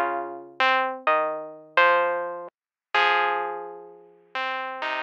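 Intro music on a keyboard: a slow run of chords, each struck and left to fade, with a short silent gap midway.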